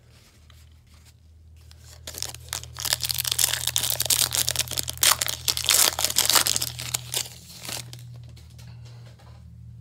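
Wrapper of a football trading card pack being torn open and crinkled by hand, a dense crackling that starts about two seconds in and lasts around five seconds, over a steady low hum.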